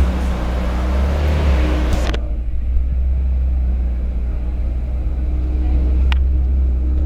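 Ferrari California's V8 idling with a steady deep rumble. A broad hiss over it cuts off abruptly about two seconds in, and there is a short click about six seconds in.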